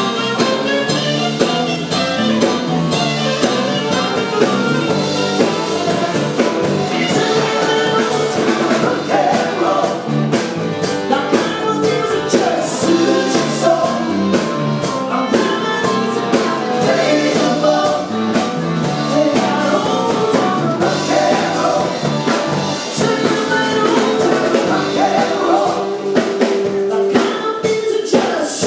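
Live band playing a rock-and-roll style song with vocals, drum kit and guitar.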